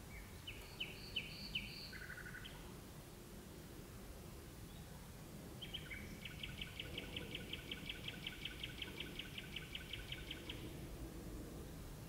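Nightingale singing: a short phrase of four quick high notes falling to a lower one, then after a pause a long rapid series of repeated notes, about five a second, lasting some five seconds. A low background rumble runs underneath.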